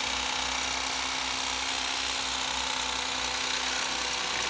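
Bubba lithium-ion cordless electric fillet knife with a 9-inch flex blade, running with a steady motor hum as its reciprocating blades cut a walleye fillet along the spine.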